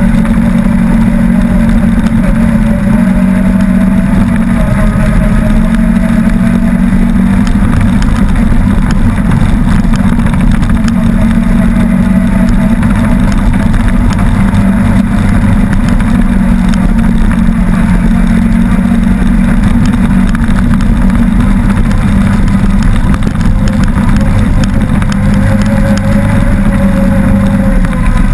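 Off-road vehicle engine running steadily under way, loud and close to the microphone, with only slight changes in pitch as it travels.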